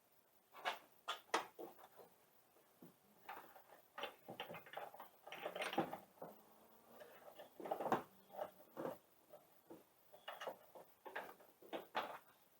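Plastic tail-light clips and parts being handled and worked loose by hand: irregular small clicks, taps and scrapes, some in quick clusters.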